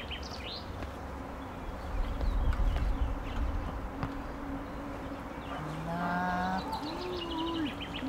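A flying insect buzzing close by, a steady hum that wavers in pitch near the end, with birds chirping now and then. A low rumble comes in about two seconds in and lasts about a second and a half.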